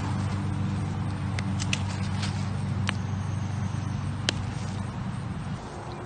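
A steady low engine hum that fades out near the end, with a handful of sharp clicks and crackles from gloved hands digging through loose potting soil on plastic sheeting.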